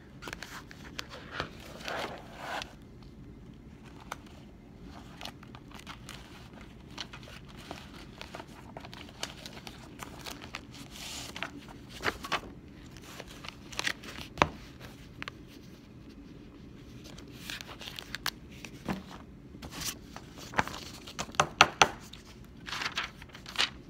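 Sheets of paper being handled and shuffled: intermittent rustling and crinkling, with a quick run of sharp, louder crackles near the end.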